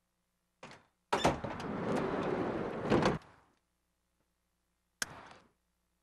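Handling clunks: a light knock, then about two seconds of steady scraping, sliding noise opening and closing with a sharp clunk, and a single sharp click about five seconds in.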